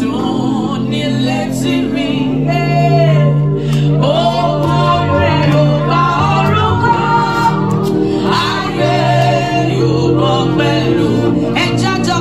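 A woman singing into a microphone, with a crowd singing along, over long held low notes.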